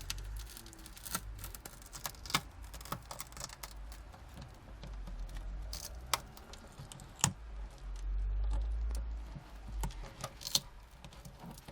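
Scattered sharp clicks and taps of a tool working cracked tablet digitizer glass loose, with a brief low rumble of handling about eight seconds in.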